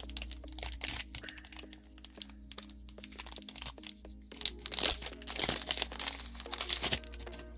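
Foil trading-card booster pack wrapper being torn open and peeled back by hand, crinkling and crackling in quick runs of sharp rustles that grow busier and louder in the second half. Quiet background music runs underneath.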